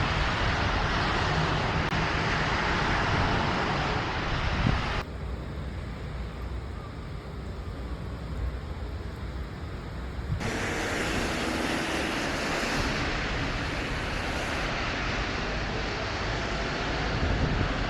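Steady outdoor hiss of rain with a low traffic rumble, changing abruptly about 5 and 10 seconds in.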